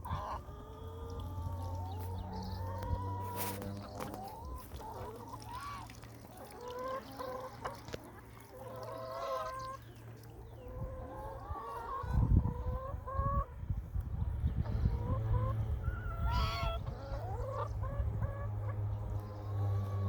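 A flock of hens clucking and calling in many short, separate notes, over a steady low hum, with a brief low rumble about twelve seconds in.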